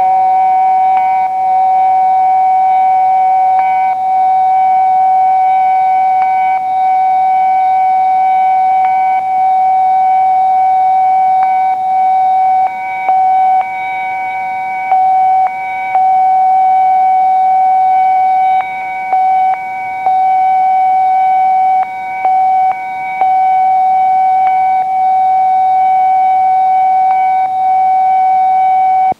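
A loud, sustained tone held on one unchanging pitch with a few fainter overtones, dipping briefly in level every second or two, as played back from a microcassette recording.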